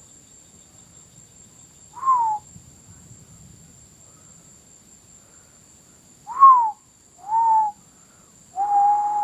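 Steady high-pitched chorus of night insects, crickets, with four short whistle-like calls: three brief ones that drop in pitch, about two, six and seven seconds in, then a longer level one near the end.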